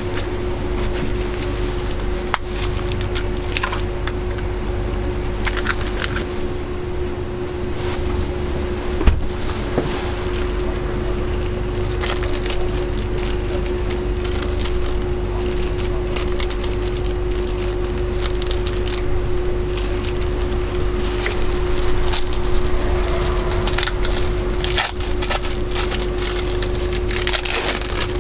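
Food-stall work sounds: a steady equipment hum with low rumble under it, and many scattered clicks and knocks of handling and utensils.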